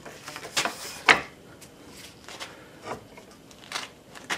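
A few separate clanks and scrapes of heavy steel tools being handled, the sharpest about a second in: a pipe being fitted over a large crescent wrench's handle as a cheater bar to break loose a stuck nut.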